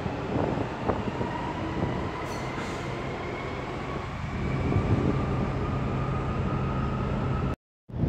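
DB Class 423 S-Bahn electric multiple unit pulling away, its traction motors giving a faint whine that rises slowly in pitch over a steady running hum, with some wind noise on the microphone. The sound cuts off abruptly near the end.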